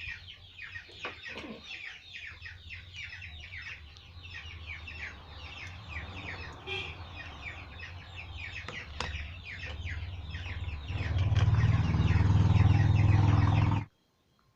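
Chickens clucking and peeping in rapid, overlapping chirps, over a low hum that grows louder near the end; all of it cuts off abruptly shortly before the end.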